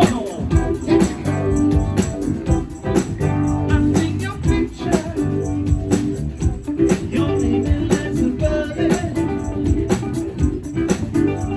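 A live band playing a song: singing over guitar with a steady drum beat.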